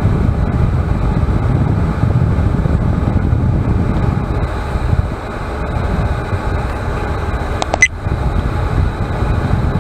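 Vevor 12-volt diesel air heater running at full heat, a steady fan rush of hot air. A brief click about eight seconds in.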